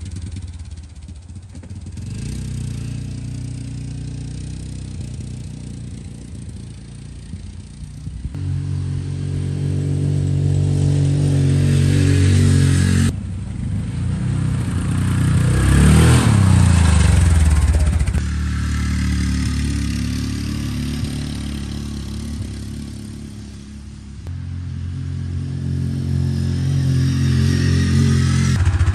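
Yamaha Grizzly 700 single-cylinder engine driving a 4x4 golf cart around a yard. The engine note rises and falls as the cart speeds up and slows, and is loudest about halfway through, when the cart passes close by and its pitch drops as it goes past.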